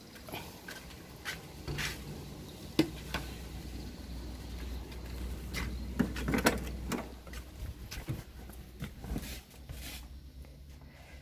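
Handling noise from a phone camera, with scattered clicks, knocks and rustles inside a car. The sharpest click comes about three seconds in and a cluster of knocks falls around the middle, over a faint low hum.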